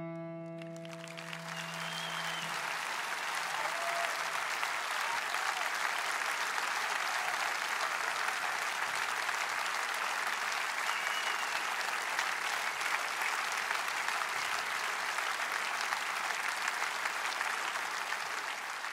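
Audience applauding steadily after a performance. The final piano chord fades out under the clapping in the first couple of seconds.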